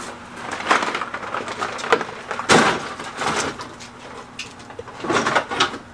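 Irregular hollow knocks and rustling as hard plastic duck decoys are rummaged through and picked up, with one louder clunk in the middle.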